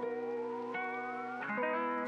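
Instrumental background music: sustained chords that change every second or so, with one tone slowly rising in pitch.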